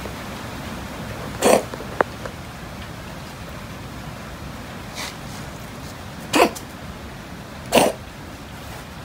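Cats eating chopped raw chicken from steel plates, with three short, sharp bursts of noise about a second and a half, six and a half and eight seconds in, and a single sharp click near two seconds.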